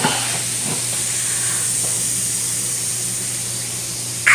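Steady fizzing hiss of an L.O.L. Surprise Bubbly Surprise effervescent ball dissolving in a tub of water, with a brief louder sound near the end.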